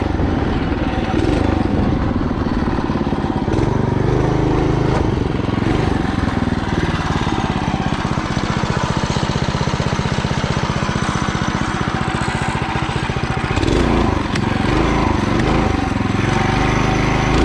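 Mini bike's small gas engine running hard through a newly fitted torque converter, revving up and easing off a couple of times and holding steadier in between.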